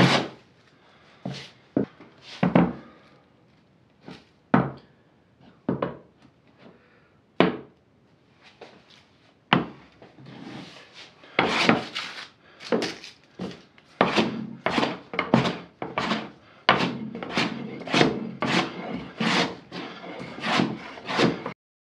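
Wooden-bodied hand plane shaving a European beech board to flatten it, each push a rasping swish. The strokes come slowly with pauses and a few sharp knocks at first, then settle into a steady rhythm of about two strokes a second in the second half.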